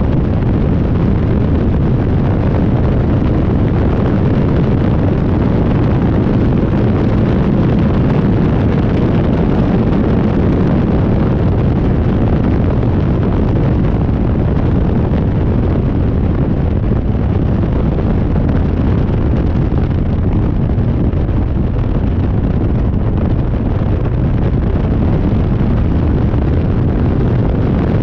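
KTM X-Bow at track speed, heard from an onboard camera in its open cockpit: heavy, steady wind buffeting on the microphone over the car's engine.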